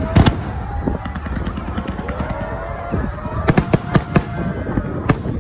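Fireworks display: sharp bangs and crackles of bursting shells over a continuous low rumble, with a quick cluster of bursts about three and a half to four seconds in.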